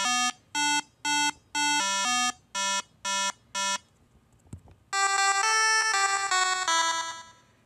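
Short electronic melody of buzzy synthesized notes: a run of short, clipped notes, then a longer held phrase of changing notes that fades out near the end.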